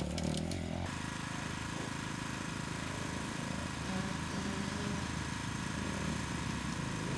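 Enduro dirt bike engine running at fairly steady, low revs. The sound changes abruptly about a second in.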